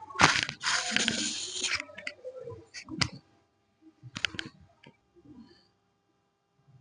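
Rustling and shuffling for about two seconds, then a handful of separate sharp clicks and knocks.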